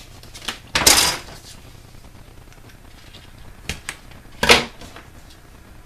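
Double-sided adhesive tape (Sticky Strip) pulled from its roll and cut with scissors: two short, loud noisy sounds, about a second in and at about four and a half seconds, with a few light handling clicks between.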